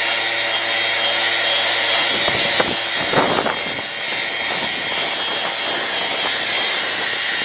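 Electric power sander running steadily on the keel's fouled bottom paint, hooked to a shop dust extractor, with a few brief knocks and scrapes about two to three seconds in.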